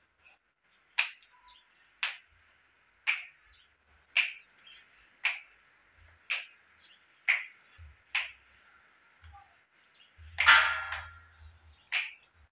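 Sharp knocks or strikes repeating steadily about once a second, with a longer, louder scraping noise about ten seconds in, over a faint steady high hiss.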